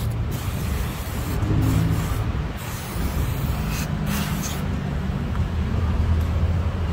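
Aerosol cleaner sprayed onto a throttle body in several hissing bursts over about four and a half seconds, with a steady low hum underneath.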